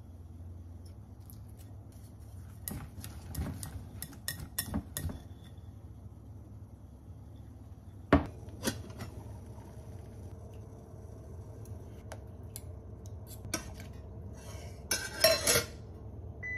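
Kitchen dish sounds: scattered clinks and knocks against a glass mixing bowl, one sharp knock about halfway, and a bright metallic clatter from a stainless-steel saucepan lid near the end.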